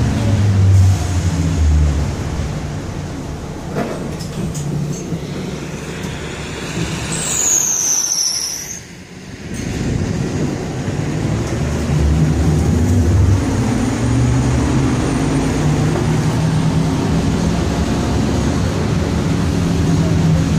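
City bus running, heard from inside the cabin: a steady low rumble of engine and road noise. About seven seconds in, a brief high squeal falls in pitch, and the noise dips briefly just after.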